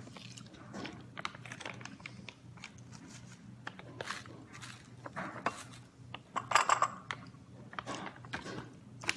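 Eating sounds: a spoon clicking against a bowl and chewing of oatmeal with crushed almonds, as scattered light clicks with a louder burst about six and a half seconds in, over a steady low hum.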